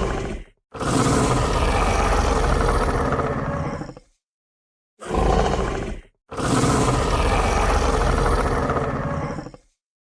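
Yutyrannus dinosaur roar sound effect: two roars about three seconds each, each with a short call just before it, with about a second of silence between them.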